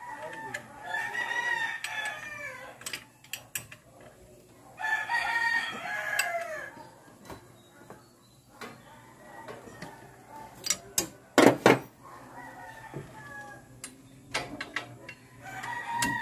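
Rooster crowing again and again: two long crows in the first seven seconds, a fainter one after about twelve seconds, and another starting near the end. A short cluster of sharp knocks about eleven seconds in is the loudest sound.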